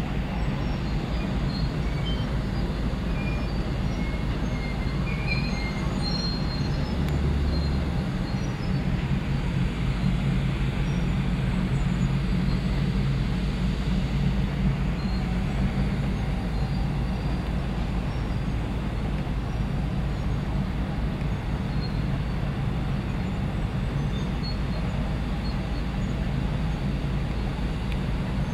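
Steady low hum and rushing noise on the open deck of a large car ferry under way: the ship's machinery running, with wind and water going by, at an even level throughout.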